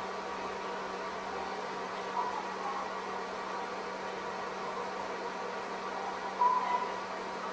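Steady fan-like hum and hiss with a low constant tone underneath, broken by two brief faint sounds: one about two seconds in and a louder one near the end.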